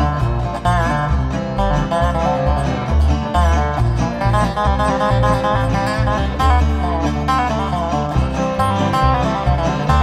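A band playing a song live: plucked strings over a pulsing bass line, in a country or bluegrass style.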